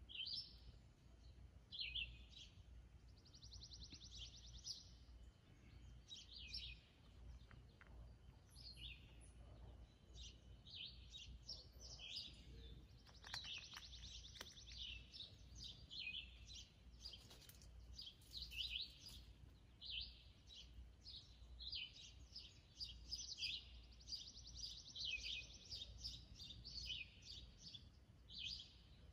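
Several birds chirping and singing: many short chirps with three longer rapid trills spread through, over a faint steady low rumble.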